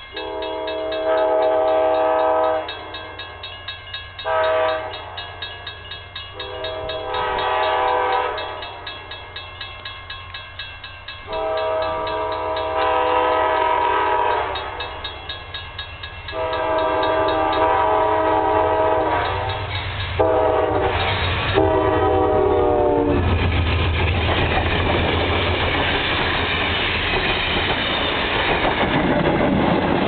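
Passenger train's multi-tone air horn sounding a series of blasts for a grade crossing: several long ones with short ones between, the last few in quick succession. About 23 seconds in, the train reaches the crossing and passes close by, and the loud rumble and clatter of its locomotive and wheels drown out everything else.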